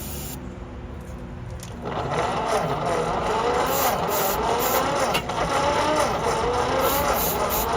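Starter motor cranking a 1945 Ford 2N's flathead four-cylinder engine, primed with starting fluid, beginning about two seconds in. Its whine wavers up and down as it labours, the starter struggling to spin the engine fast enough to start.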